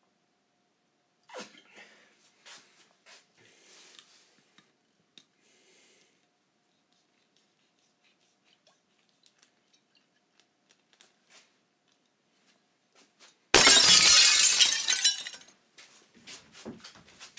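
Faint handling clicks and rustles, then about thirteen seconds in a sudden loud crash that dies away over about two seconds, followed by a few lighter knocks.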